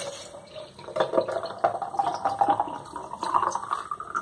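Horchata poured in a thick stream from a plastic pitcher into a glass mason jar over ice cubes; the filling sound rises steadily in pitch as the jar fills.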